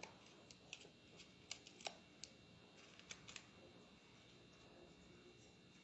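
Faint scattered light clicks and taps from hands handling small cardstock pieces, about a dozen in the first three and a half seconds.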